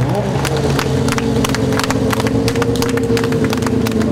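Rally car engine running at a steady pitch after a brief rise, with a quick run of sharp clicks and pops over it.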